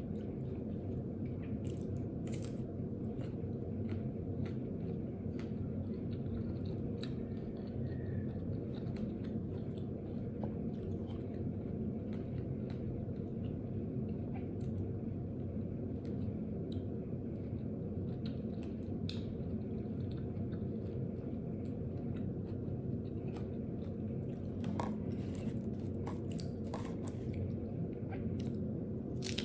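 A person chewing and biting mango with fried chilies, with scattered crisp crunches and mouth clicks over a steady low hum.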